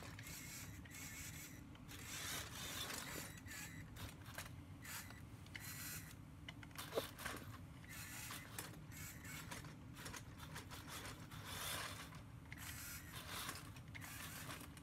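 LEGO remote-controlled truck's electric motor and plastic gear train whirring and rattling in spurts as it drives on carpet.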